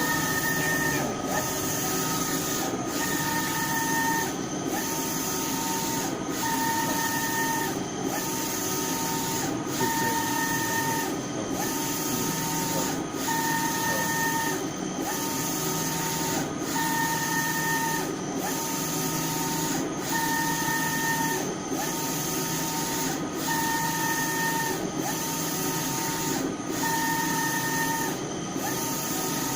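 Eyecolor JC-2000 UV printer running a print job: the print-head carriage shuttles back and forth in an even rhythm, its motor whine switching between a lower and a higher pitch about every second, over a steady machine hum.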